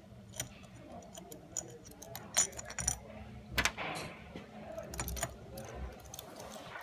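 Irregular small metal clicks and clinks of parts being handled at the governor end of a Cummins PT fuel pump, the loudest few near the middle.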